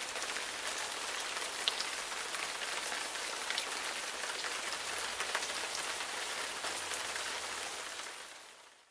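Steady rain falling, an even hiss with scattered ticks of individual drops, fading out near the end.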